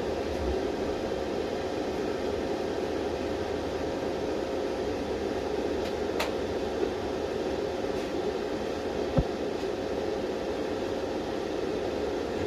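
INVT variable frequency drive running, its cooling fan giving a steady whir with a faint steady hum. A sharp click about six seconds in and a short thump about nine seconds in.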